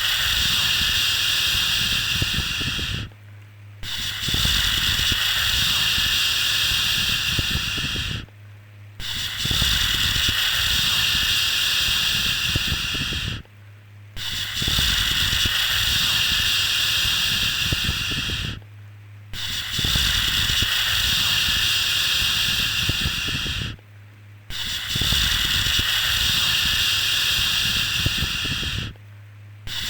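Repeated shushing 'shhh' sound for soothing a baby: long hisses of about four seconds each, with short breaks between them, coming roughly every five seconds. A faint steady low hum runs underneath.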